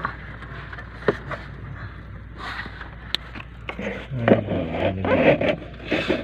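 Hands working wires and plastic connectors in the wiring behind a truck's dashboard: scattered scrapes and light clicks, then louder, denser rubbing from about four seconds in as a hand comes right up against the camera.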